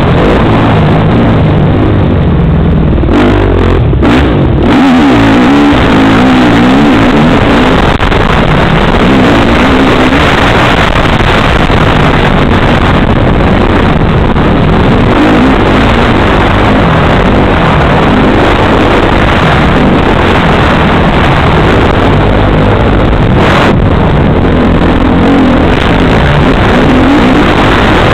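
Motocross bike engine heard close up from the bike itself, loud and revving up and down repeatedly as it is ridden hard around a dirt track.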